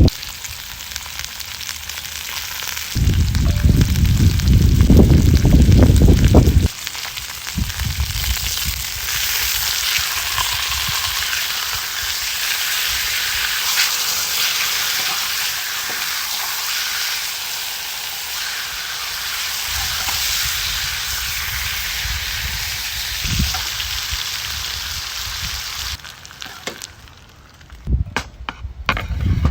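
A steady sizzling hiss with small crackles. Heavy wind buffets the microphone from about three to seven seconds in. The sizzle fades out near the end, leaving a few clicks.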